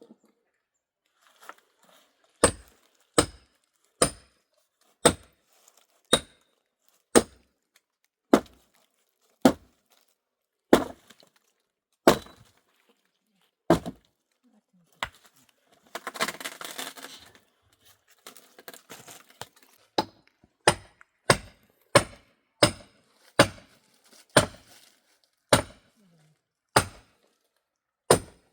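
Repeated sharp blows of a hand tool on wood, about one a second, in two runs, the second a little faster. About halfway through there is a short burst of rustling noise.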